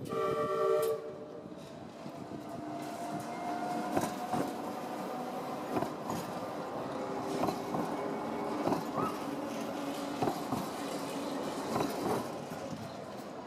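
Manchester Metrolink T-68 tram sounding a short horn blast for about the first second, then passing close with a steady electric motor whine that rises slightly in pitch and its wheels clacking over rail joints and points.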